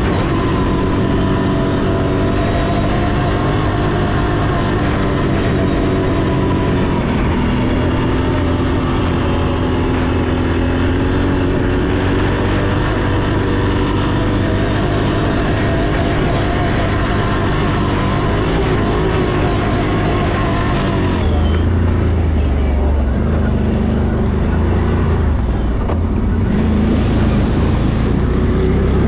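A 1000 cc ATV engine running under way, its pitch rising and falling gently with the throttle. About three quarters of the way through the note changes to a deeper, heavier rumble.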